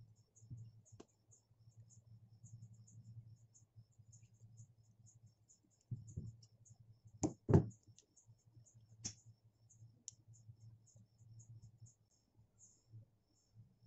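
Rapid, high-pitched insect chirping repeating steadily over a faint low hum. Near the middle come two knocks and a sharp click from handling on the work table.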